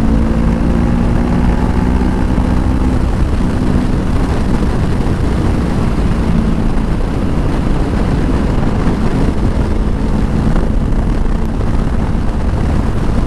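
Honda CBR500R's parallel-twin engine running steadily while riding, under heavy wind rush on a helmet microphone; the engine note is clearest in the first few seconds, then mostly buried by the wind.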